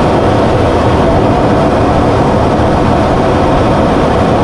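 Steady, loud drone of a fighter jet in flight: engine and rushing airflow heard from inside the cockpit.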